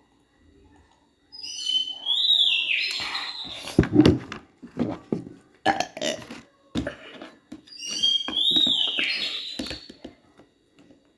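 Close-up eating sounds: short sharp crunches and chewing, as of taro chips, in two bouts. Each bout opens with a high whistle-like squeak that falls in pitch.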